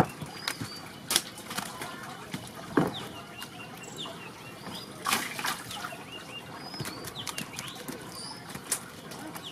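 A wet nylon fishing net and freshly caught fish being handled: irregular sharp slaps, flaps and rustles as the fish are picked out of the mesh. Small birds chirp faintly now and then.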